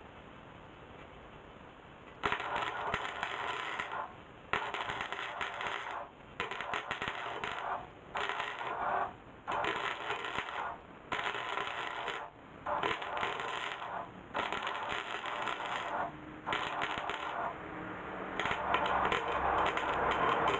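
Welder arc crackling in repeated bursts of one to two seconds with short pauses between them, starting about two seconds in, as a hole in a steel motorcycle muffler is welded shut.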